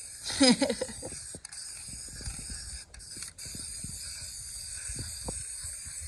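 Aerosol spray can being shaken, its mixing ball rattling in irregular clicks, with a short louder burst about half a second in.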